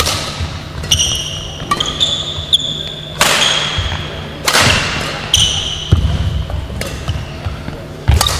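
Badminton rally: sharp racket hits on the shuttlecock about once a second, with short high squeaks of court shoes on the wooden floor, echoing in a large sports hall.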